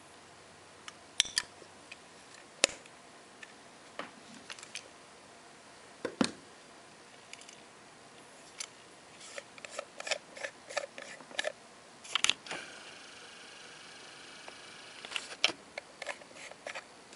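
A metal pocket watch case being handled, opened and closed: scattered sharp clicks and taps, with a quick run of small clicks in the middle. Near the end, more small clicks come as the case's screw bezel is turned.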